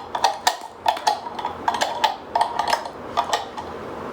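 A spoon clinking over and over against a dish, about four ringing taps a second, as salsa is scooped and knocked into a dip; the taps stop about three and a half seconds in.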